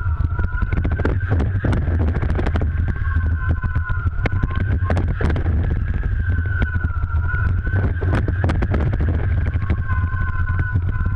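Slalom water ski carving through choppy water, heard from a camera mounted on the ski. There is a heavy rumble, with frequent sharp slaps as the chop hits the ski, over a steady whine that wavers slightly in pitch.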